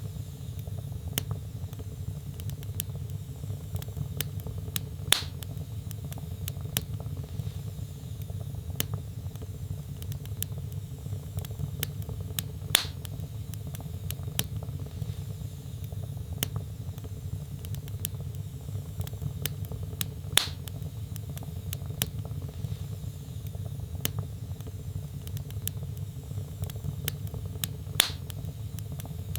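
Wood fire burning in a fireplace: a steady low rumble of flames under many small, sharp crackles, with four louder pops evenly spaced about seven and a half seconds apart.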